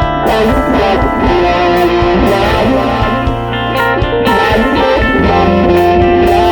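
Guitar-led instrumental music.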